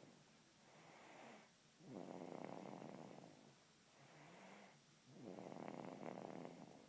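Faint, slow rhythmic snoring: a louder snore about every three seconds, with a softer breath between each.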